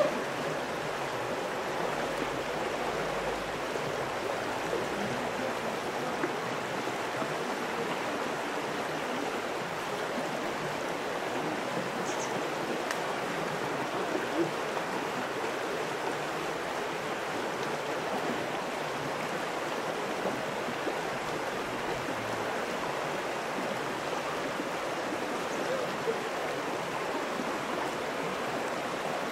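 A stream rushing steadily, with a few faint clicks now and then.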